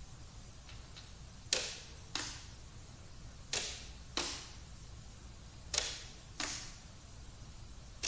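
Chromatic button accordion played as a noise instrument, with no pitched notes: short breathy whooshes of bellows air, each starting with a click and fading quickly. The whooshes come in pairs about half a second apart, with a pair about every two seconds.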